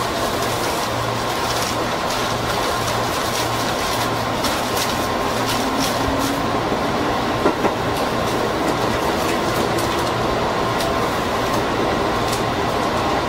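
JR 205-series electric commuter train running at speed, heard from inside its front cab: steady running noise and hum, with frequent clicks of the wheels over rail joints. Two sharp knocks about halfway through.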